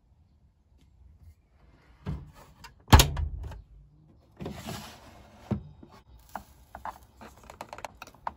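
Hotpoint washing-machine door shut with a hard thud about three seconds in, among a few knocks and a brief rustle, followed by a run of sharp clicks.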